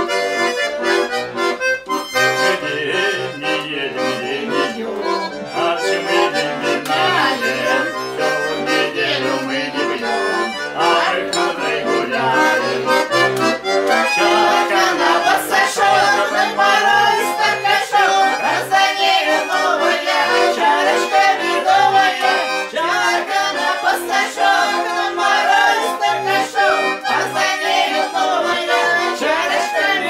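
Button accordion playing a tune, a melody over regularly repeating bass notes.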